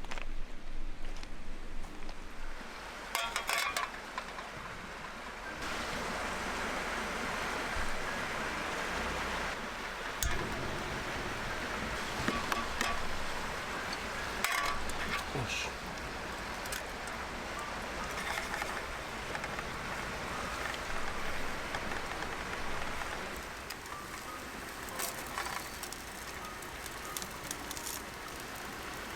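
Steady hiss of water, with scattered clicks and taps; the sound shifts abruptly several times.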